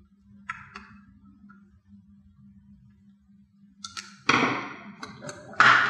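Hands handling a plastic switch housing: a few faint clicks, then two louder knocks and scrapes of the plastic unit on a desk about a second apart near the end, over a faint low hum.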